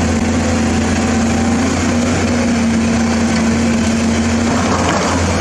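Large Caterpillar crawler bulldozer's diesel engine running loud and steady with a constant drone while the dozer pushes broken rock.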